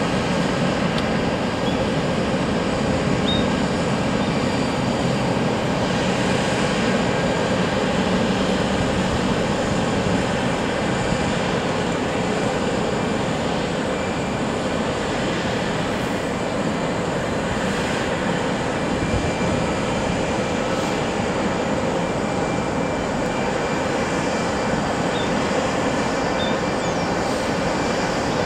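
Airliner jet engines running on the airport apron: a steady roar with a constant whine laid over it, unchanging in level.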